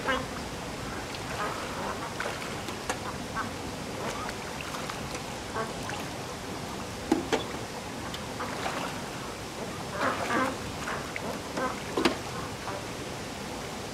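Domestic ducks quacking on and off, with louder bursts of calls about halfway through and again near the end, over a steady wash of background noise.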